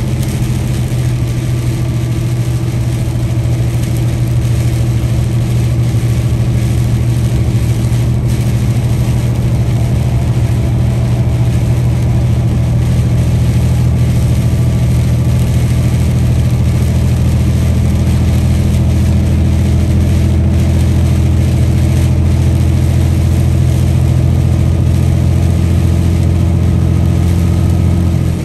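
Peterbilt 579 semi-truck's diesel engine droning steadily under way, over a steady hiss.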